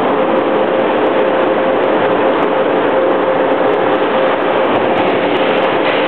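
Steady, loud ambient noise of an indoor ice rink during hockey play, with a constant hum running through it.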